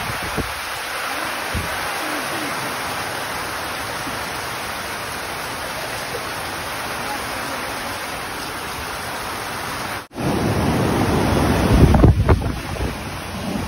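Typhoon rain and wind, a steady hiss. About ten seconds in it cuts to storm surf breaking on a beach, louder, with surging waves and wind rumbling on the microphone.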